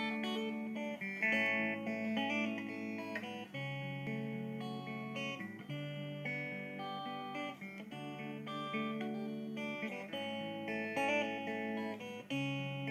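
Background music: a guitar playing a plucked melody of separate notes.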